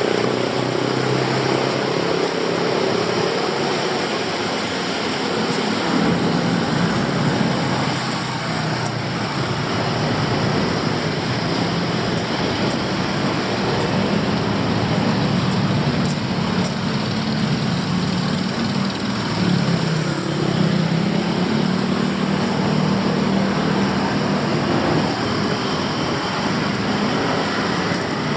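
City street traffic: a steady wash of engine and tyre noise from passing vehicles, with engine hum rising and falling as they go by.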